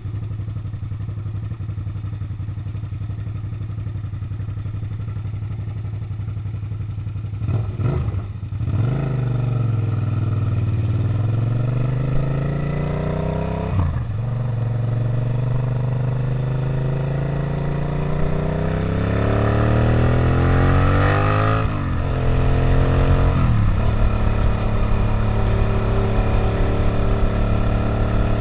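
Suzuki SV650's 645 cc V-twin engine running steadily at low revs, then pulling away about eight seconds in. Its note climbs through the gears, dropping sharply at up-shifts about fourteen, twenty-two and twenty-four seconds in, then holds steady at cruising speed.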